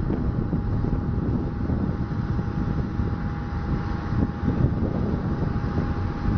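Ilyushin Il-18's four Ivchenko AI-20 turboprop engines running, a steady drone with a thin steady whine, under a low irregular rumble of wind buffeting the microphone.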